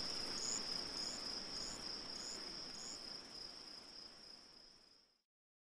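Crickets chirping: a steady high trill with a sharper chirp a little more than every half second, fading out about five seconds in.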